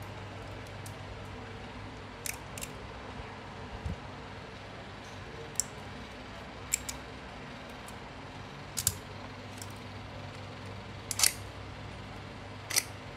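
Pliers working a thin round steel wire while a replacement click spring is shaped: scattered sharp metallic clicks and snips, about eight of them a second or more apart, the loudest a little before the end, over a steady low hum.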